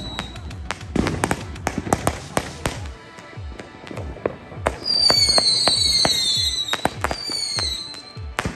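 Consumer aerial fireworks going off in a rapid string of pops and bangs, several a second. About five seconds in, several shrill whistles come in together, falling in pitch, with one more near the end.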